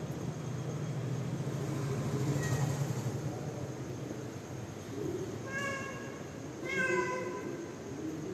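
A mother cat calling her kittens. A low steady rumble runs for the first three seconds, then come short high-pitched meows about five and a half and seven seconds in.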